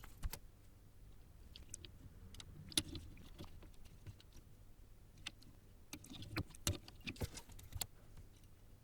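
Scattered light clicks and taps of small metal parts and hand tools handled on a workbench, as through-hole resistors are fitted into a circuit board. The clicks are faint and irregular, bunched more closely near the end.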